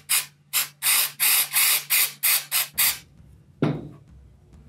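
Aerosol can of CRC cleaner sprayed in about ten short hissing bursts onto a delidded CPU, washing solder-remover residue off the die. A brief low sound follows near the end.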